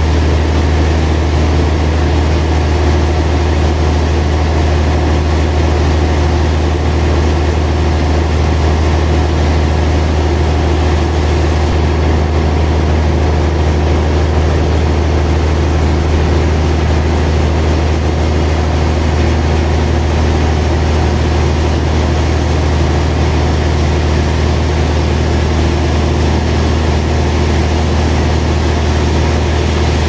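Large band sawmill running with a steady, low hum and a hiss of noise as its band blade saws lengthwise through a big log.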